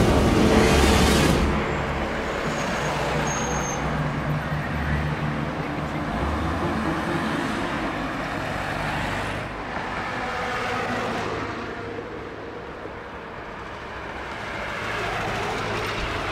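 City street traffic: car and bus engines running and vehicles passing on the road, loudest in the first second or so and then steadier.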